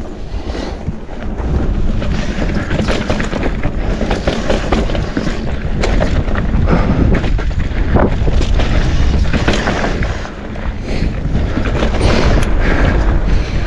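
Wind buffeting the camera microphone on a mountain bike descent, with the tyres rolling over dirt and the bike rattling and knocking over bumps. It eases briefly about ten seconds in.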